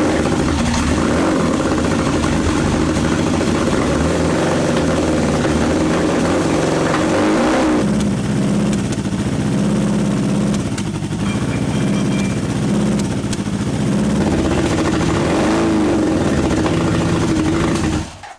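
Honda CB750's air-cooled inline-four engine running just after starting, its revs rising and falling a few times, then cut off near the end. It isn't running well, which the owner puts down to carburettors not yet sorted, but it is firing on all four cylinders.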